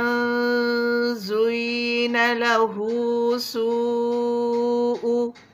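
Quran recitation with tajweed: one voice chanting in a few long held notes, with short breaks between phrases.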